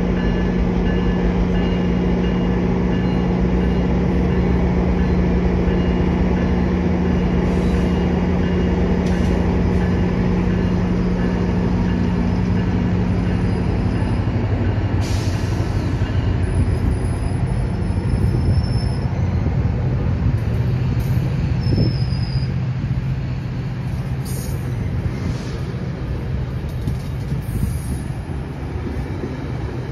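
GO Transit bilevel commuter train rolling slowly past, steel wheels on the rails with a steady low engine hum that drops away about halfway through. Thin, high wheel squeal comes and goes in the middle, with a few short clicks, and the train noise eases a little near the end.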